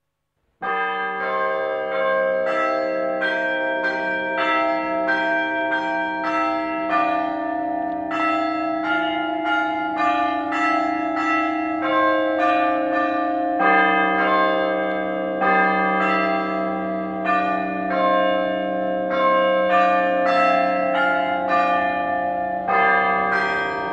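Church bells ringing a continuous peal, several bells of different pitch struck in quick succession at about three strokes a second, starting about half a second in.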